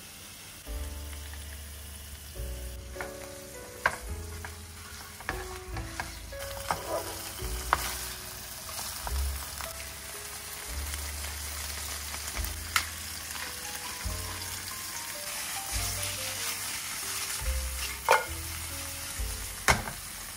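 Monkfish backbones frying in olive oil with garlic and parsley in a nonstick pan: a steady sizzle that grows stronger after the first few seconds. A few sharp clicks from the pan or a utensil cut through it, the loudest near the end.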